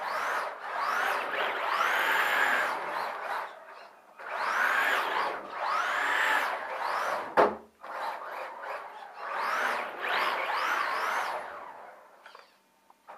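Electric RC drift car's motor whining up and down in pitch in repeated bursts as the throttle is opened and released, with the tyres scrubbing across carpet, in three runs. A sharp knock about seven seconds in; the sound dies away near the end.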